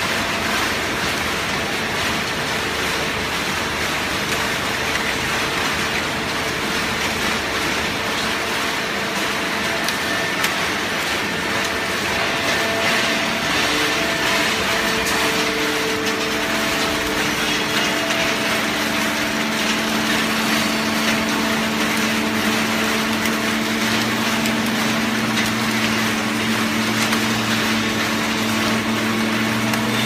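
Horizontal hydraulic waste-paper baler running: a steady mechanical din with a hum over it. The hum drops in pitch partway through, and a deeper hum joins it in the last few seconds.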